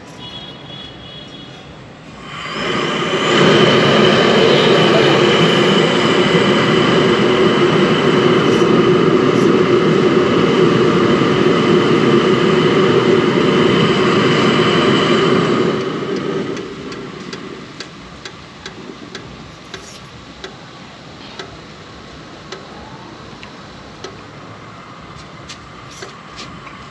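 Milk poured in a steady stream into a large aluminium pot of tea on the boil: a loud, rushing splash with a ringing tone from the pot, lasting about thirteen seconds and stopping suddenly. Afterwards the tea simmers with soft bubbling and small clicks.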